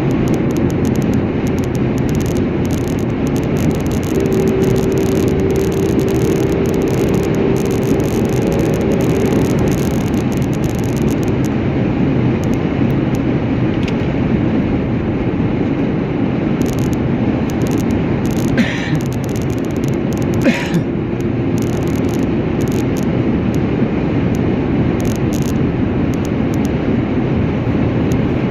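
Steady noise of a vehicle on the move, road and engine together. A faint held tone runs for a few seconds early on, and two brief sharp sounds come about two seconds apart past the middle.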